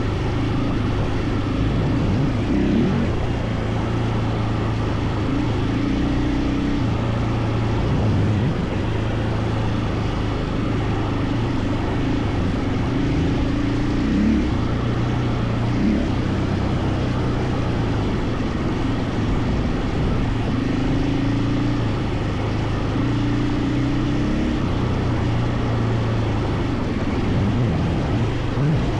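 KTM 450 EXC single-cylinder four-stroke enduro engine running under way off-road. Its note holds steady for a few seconds at a time, then shifts in pitch as the throttle opens and closes.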